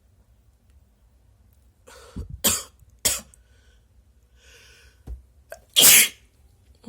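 A person sneezing: a sharp intake of breath, then two sneezes in quick succession, then another breath in and a single, louder sneeze near the end.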